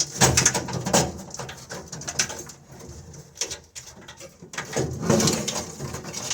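Irregular clicks, knocks and rustling of hands working loose the old wiring harness behind the truck's dash, loudest near the start and about five seconds in.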